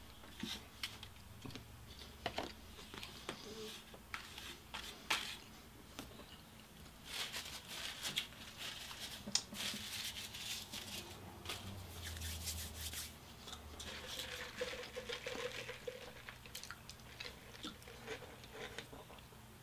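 A person eating close to the microphone: crunching and chewing food, with scattered small clicks and rustles and a denser run of crunching in the middle.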